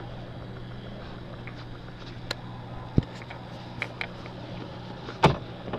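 Boat engine running at idle with a steady low hum, under scattered clicks and knocks; the loudest is a sharp knock a little after five seconds in.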